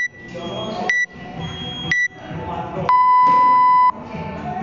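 Workout interval timer counting down to the start: three short high beeps about a second apart, then one long, lower beep of about a second signalling go.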